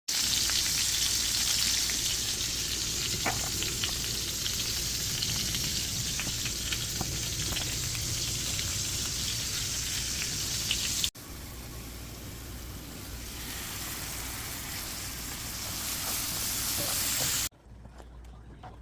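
Food frying in a hot pan: a steady sizzle with scattered crackles. About eleven seconds in it cuts abruptly to a quieter sizzle, which drops away to faint clicks near the end.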